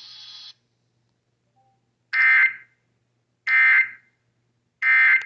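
NOAA Weather Radio's EAS end-of-message signal: three identical half-second bursts of SAME data tones, about a second and a half apart, closing the tornado warning broadcast. Before them, the radio's background hiss cuts off about half a second in.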